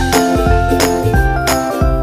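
Background music: a melody over a steady beat.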